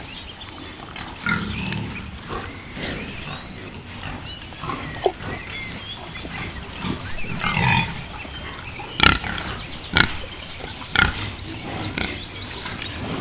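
Wild boar grunting low and intermittently. In the second half there are sharp knocks about once a second, the loudest sounds.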